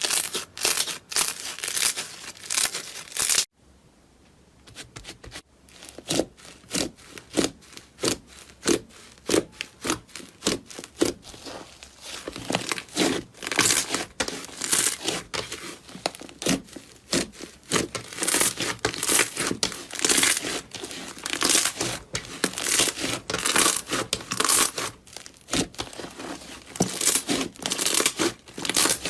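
Slime filled with rice-like grains being stretched and squeezed by hand, giving off a dense run of crackling, popping snaps. There is a short lull a few seconds in, then the snapping comes back in a quick, fairly regular run.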